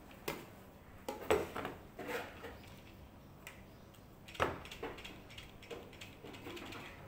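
Plastic blender jug being handled as pandan juice is poured from it into a bowl: a series of sharp clicks and knocks, the loudest about a second in and again about four seconds in.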